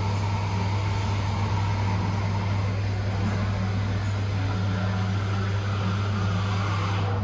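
Steady low mechanical hum, unchanging throughout, over a faint background hiss.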